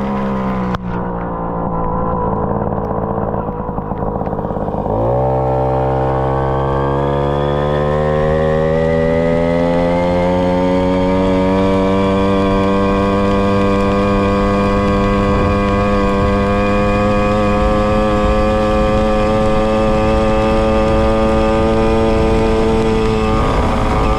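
Tomos XL 45 moped's small two-stroke engine running through a Tecno Bullet exhaust. Its pitch sags for the first few seconds as the throttle eases off, then about five seconds in it picks up sharply and climbs steadily as the moped accelerates, holding a steady pitch at cruising speed before easing slightly near the end.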